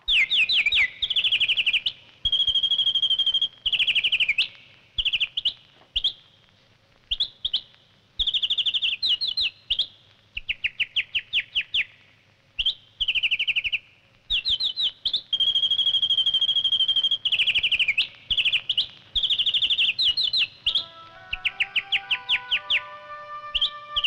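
A nightingale singing: phrases of rapid trills and long, held whistled notes, broken by short pauses. Soft orchestral music comes in under the song near the end.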